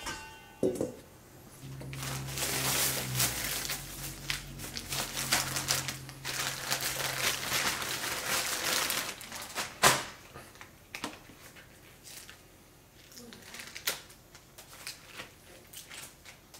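Plastic packaging crinkling and rustling as a bunch of green onions is handled and pulled out of its bag, with a knock just after the start and a sharp, louder knock about ten seconds in.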